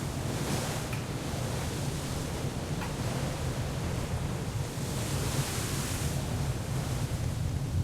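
Sea wash and wind with a steady low rumble underneath, the hiss swelling briefly about half a second in and again around five to six seconds in.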